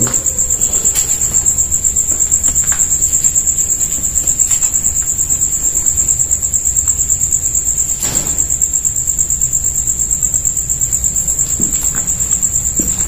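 Crickets chirping loudly at night, a steady high-pitched trill pulsing several times a second, with a few faint clicks now and then.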